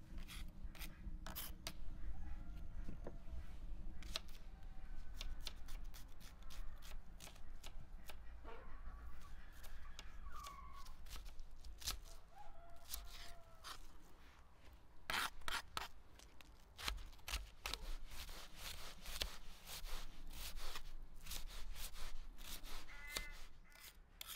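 Small kitchen knife chopping onion on a wooden board: sharp knocks in irregular runs, coming quickest in the second half. Chickens cluck faintly now and then.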